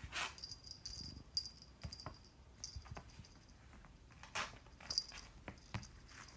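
A kitten playing with a cat-teaser wand toy: irregular light taps, scuffles and rustles as it pounces and bats at the toy.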